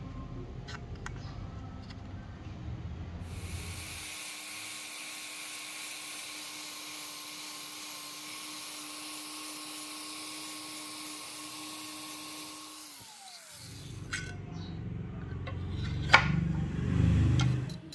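Wood rubbing on sandpaper, then an electric random orbital sander runs steadily on rosewood from about three seconds in, a hiss over a steady hum, and winds down with a falling whine when it is switched off around thirteen seconds. Near the end, rubbing and a sharp knock as a steel axe head is handled on a wooden board.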